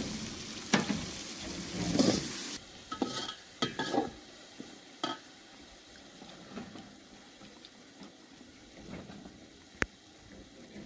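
Food sizzling in a cooking pot over a wood fire, with a spoon stirring and clinking against the metal. About two and a half seconds in the sizzling drops away abruptly, leaving scattered clinks and knocks of cookware, with one sharp clink near the end.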